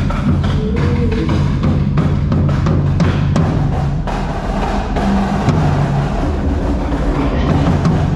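Indoor drumline playing its show: a dense run of snare and bass drum strikes over steady low sustained tones from the front ensemble.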